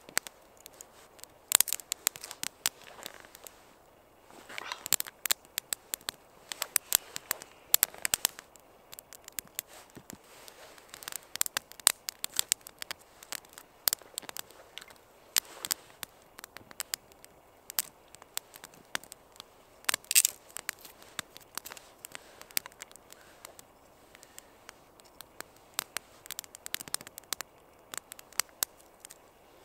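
Small campfire of split wood and feather sticks crackling and popping in sharp, irregular bunches as it slowly catches; the wood is fairly moist, which can be heard in the fire.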